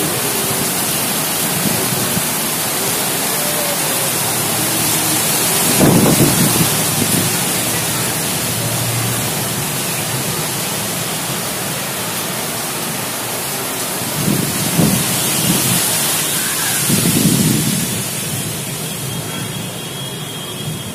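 Thunderstorm: heavy rain and wind making a steady loud hiss, with three short low rumbles, the first about six seconds in and two more near fifteen and seventeen seconds.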